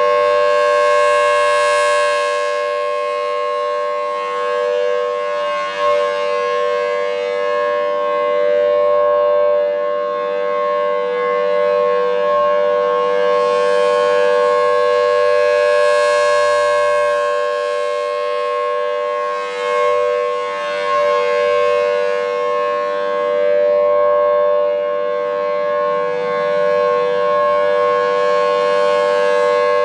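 Federal Signal Thunderbolt 1000AT outdoor warning siren sounding the full-alert signal: a loud steady tone that holds its pitch, its loudness swelling and fading every several seconds as the rotating head sweeps past.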